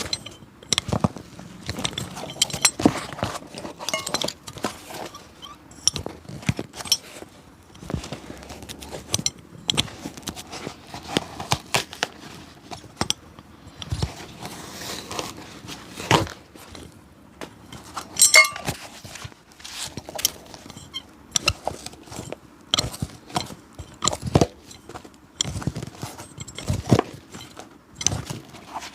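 Cobbler's hand tools working an old leather shoe: irregular clicks, taps and short scrapes.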